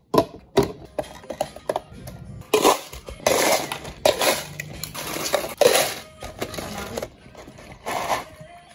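Clear plastic cups knocked and set down with sharp clicks, then ice cubes scooped and tipped into plastic cups, clattering loudly in several pours.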